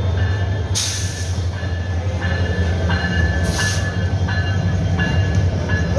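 Diesel locomotive of a passenger train passing close by, its engine a steady low rumble. Wheels knock sharply at intervals, and two short bursts of hiss come about a second in and again about three and a half seconds in.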